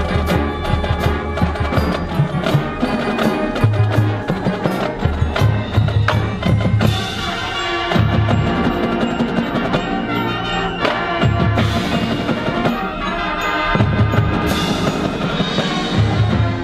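High school marching band playing a field show, with many sharp percussion strikes over sustained band chords and a low bass line that moves in long held notes.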